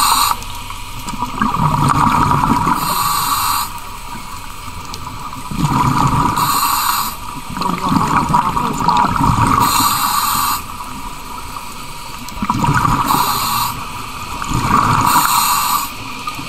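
A diver breathing through a demand regulator underwater: a breath every three to four seconds, each a hiss followed by a rush of exhaled bubbles, with quieter pauses between.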